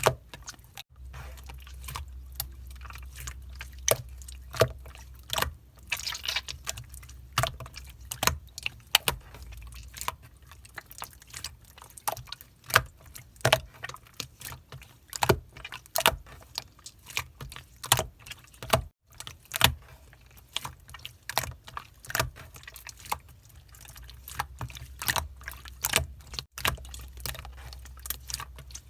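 Clear slime being squeezed and stretched by hand, making irregular sharp clicks and pops, several a second.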